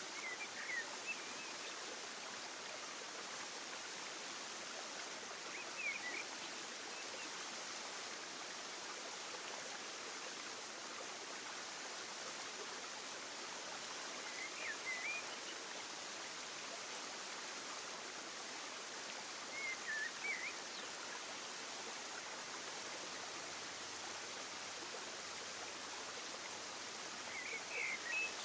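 Steady rushing of flowing water, like a stream, with short high chirps every few seconds.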